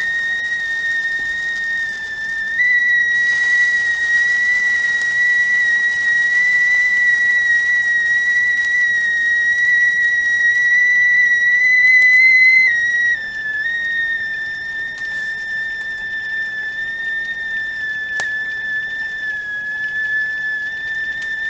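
Stovetop tea kettle whistling at the boil: one steady high tone over a faint hiss of steam. The pitch steps up slightly a couple of seconds in, drops a little past the middle, and steps back up near the end.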